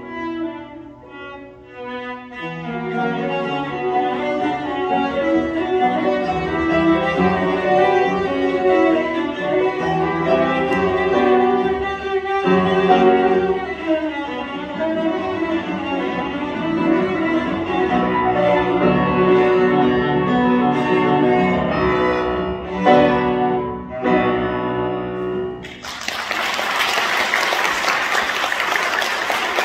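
Cello and piano playing a fast, full-toned passage to the end of the piece, with a softer stretch at the start and strong final chords. Near the end the music stops and the audience applauds.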